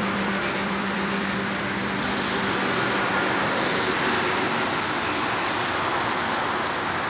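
Steady rushing noise of road traffic with no single vehicle standing out. The end of a music track fades out under it in the first two seconds.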